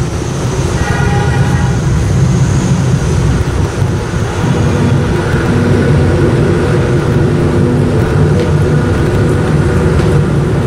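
Loud, steady low rumble of street traffic, with engine notes from passing vehicles coming through from about four seconds in.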